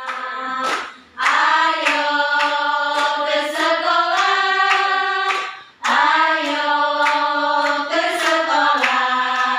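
A group of women singing together in unison, a slow melody of long held notes that slide between pitches, with short breaks between phrases about a second in and just under six seconds in. Hand claps keep a steady beat, about two a second.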